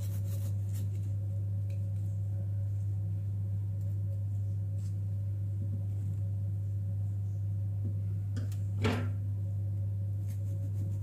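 Steady low hum, with faint scrapes and taps of a knife trimming the edges of a baked sponge cake on a cloth-covered tray; one sharper knock about nine seconds in.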